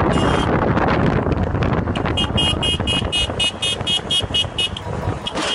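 Heavy wind and road noise rushing over a phone microphone in a moving car. From about two seconds in until near the end, a fast run of short high-pitched beeps sounds, about four or five a second.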